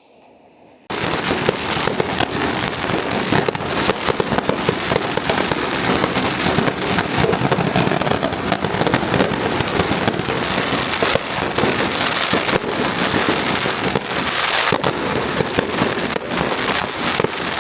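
Fireworks crackling and popping in a dense, continuous barrage that starts abruptly about a second in.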